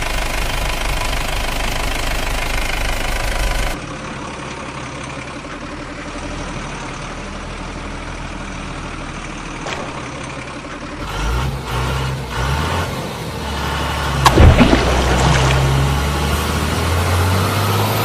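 Truck engine sounds, idling and running, that change character abruptly twice, with low pitch steps as it revs in the second half and a sharp click about three-quarters of the way through.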